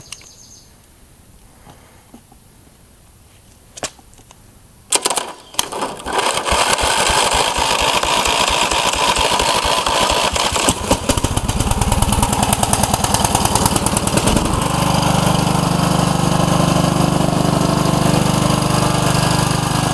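Riding mower's 15 hp overhead-valve Briggs & Stratton engine being cranked by hot-wiring the starter around a bad solenoid: a couple of sharp clicks about four and five seconds in, then several seconds of rapid cranking until it catches about eleven seconds in and runs, settling into a steady run near the end.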